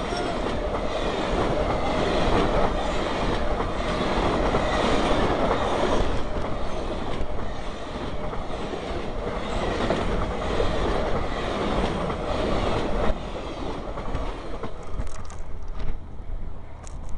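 Union Pacific streamlined passenger cars rushing past close by at about 75 mph: a steady roar of wheels on rail and air, with wheel clatter. The noise drops off about 13 seconds in as the last car passes, and a few sharp knocks follow near the end.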